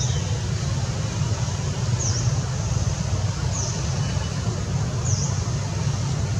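Outdoor ambience: a steady low rumble under a hiss, with a short high chirp repeating about every second and a half.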